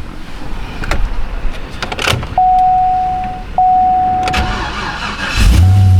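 A car's chime sounds twice, each a single steady tone lasting about a second. Then near the end the engine starts and runs with a deep, steady rumble.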